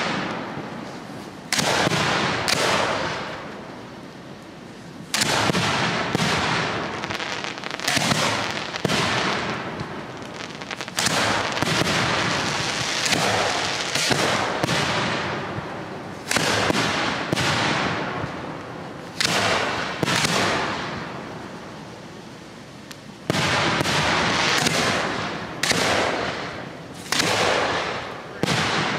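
Aerial firework shells bursting overhead in quick succession, a sharp bang every one to three seconds, each followed by a fading rumble.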